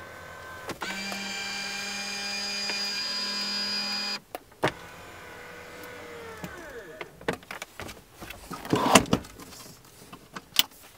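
A small electric motor whines steadily for about three seconds and stops abruptly. Scattered clicks and knocks follow, with a louder clatter a couple of seconds before the end.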